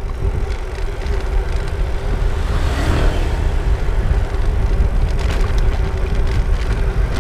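Wind rumbling on the microphone of a camera mounted on a mountain bike's handlebar as the bike rolls fast along a paved road, with a steady hum alongside.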